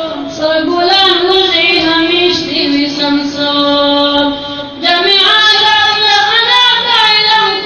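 A single high voice, a boy's or similar, singing a slow devotional melody unaccompanied, holding long notes with a short breath about five seconds in.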